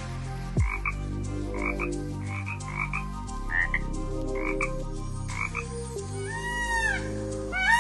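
Frogs croaking in short double-pulsed calls, repeating every half second to a second. Near the end a fowl starts giving arching calls.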